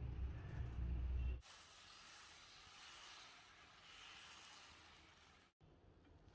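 A steady, high hiss lasting about four seconds, starting and stopping abruptly. Before it comes about a second and a half of low rumble.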